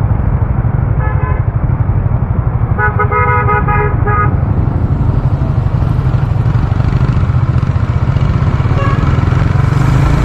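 A vehicle horn honks briefly about a second in, then again for about a second and a half around three seconds in. Underneath is the steady low rumble of a motorcycle on the move, engine and wind together.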